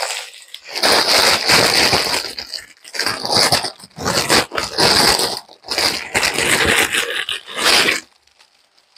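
Clear plastic packaging bag crinkling and rustling in irregular bursts as a garment is unwrapped and pulled out of it, stopping about a second before the end.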